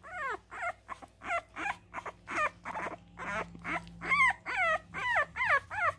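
French bulldog puppy crying in a quick string of short, high calls, each falling in pitch, about three a second, growing louder in the second half.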